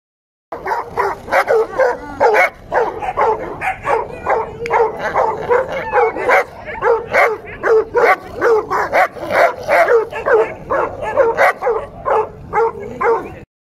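A dog barking and yelping rapidly and without let-up, several sharp barks a second.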